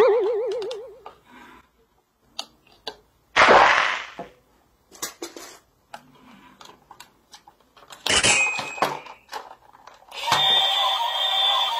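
Plastic clicks and knocks of a toy stunt train being handled, with a small plug pressed into its cab roof. A short warbling tone opens, two brief loud noisy bursts come about a third of the way in and again later, and chiming music comes in near the end.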